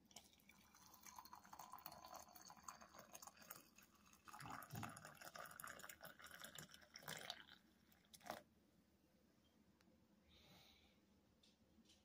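Faint pouring of water from an electric kettle into a pot, a crackly trickle with scattered clicks and a few louder knocks, stopping about eight seconds in.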